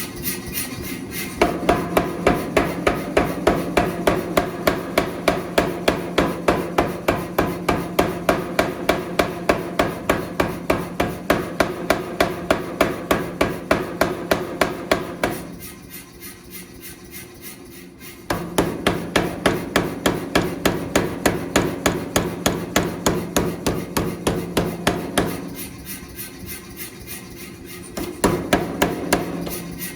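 Power hammer pounding hot steel in long, even runs of strikes, about three a second. It pauses twice while its motor keeps running quietly.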